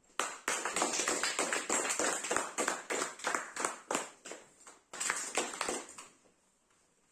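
A few people clapping after an accordion piece, a quick run of sharp claps that stops about six seconds in.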